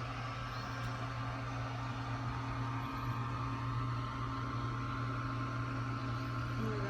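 A steady low mechanical hum with a fainter, higher steady tone above it.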